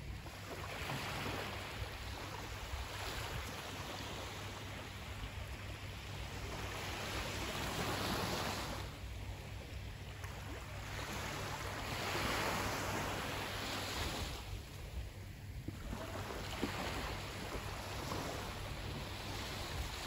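Sea waves washing onto the shore, the surf swelling and ebbing every few seconds over a steady low rumble.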